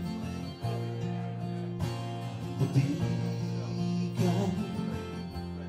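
Acoustic guitar strummed with a bass guitar underneath, playing a song live, with the chords changing every second or two.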